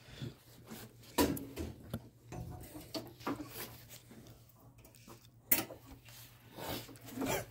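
Scattered light clicks and knocks of things being handled, over a faint steady low hum; no engine running.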